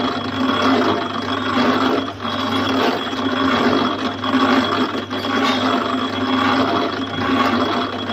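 Construction site lift (material hoist) running: a steady mechanical drone with a low motor hum and a thin, constant high whine.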